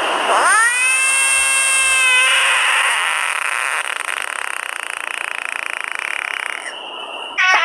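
A frog screaming while held in a hand, the distress call frogs give when grabbed. It is a loud cry that starts high and drops quickly in pitch, holds a steady pitch for about two seconds, then turns into a harsher, raspier scream for several more seconds. A new scream, falling in pitch, begins near the end.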